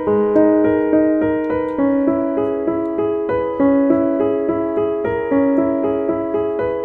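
Background music: a piano playing a steady, flowing pattern of notes, about three a second.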